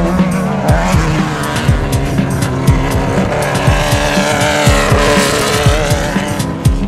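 Off-road desert race vehicle engine revving up and back down, with music playing over it.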